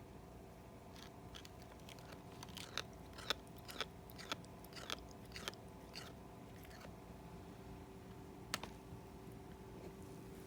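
A cat grinding its teeth: a run of short, sharp crunching clicks, bunched together a couple of seconds in, then a single click later on.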